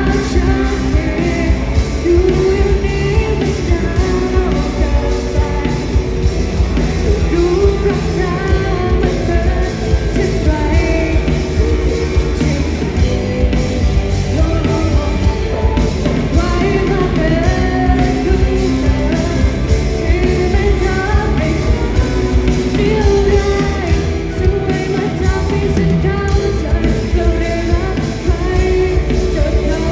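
Rock band playing live, with a singer over the band and a steady beat.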